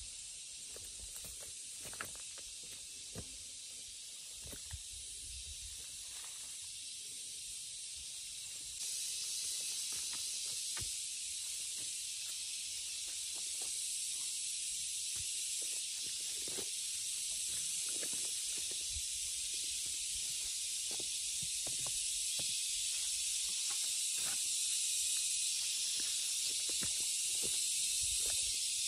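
A steady high-pitched hiss outdoors that becomes louder about nine seconds in, with scattered light clicks and knocks throughout.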